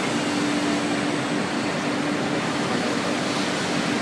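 Four-head CNC wood router running steadily: an even hiss with a steady hum from the spindles.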